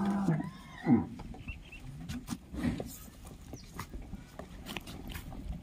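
Cattle lowing: a moo that rises and falls right at the start, then a shorter falling call about a second in. After that come fainter short calls from the herd and scattered clicks and knocks as the cows jostle at the wall.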